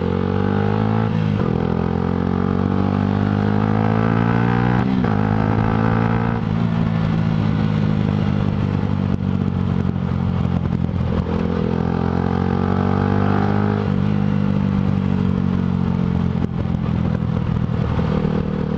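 Yamaha sport bike's engine pulling through the gears. The pitch climbs and drops back at each upshift, three times in the first seven seconds, then holds steadier and climbs once more about halfway through.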